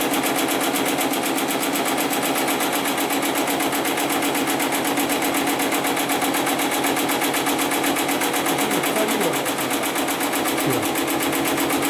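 Heavy-duty programmable pattern sewing machine running without a break, its needle stitching at a fast, even rhythm.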